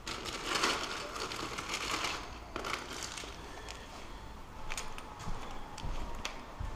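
Soft rustling and handling noise with a few light clicks, as of hands and tools moving about while working on an outlet cover.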